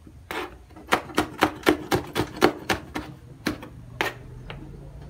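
Kitchen knife chopping red chilies on a plastic cutting board: a quick run of sharp taps, about five a second, then a few slower single strikes.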